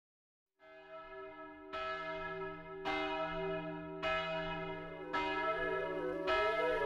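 A bell struck at an even pace, a little slower than once a second, each strike ringing on and overlapping the next, growing steadily louder as it fades in. A wavering melody enters over it near the end.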